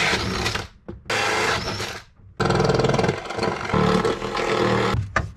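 Handheld electric drill running in three bursts of a second or more, each starting abruptly, working a sanding attachment around the edges of freshly cut cable holes in a plywood bulkhead.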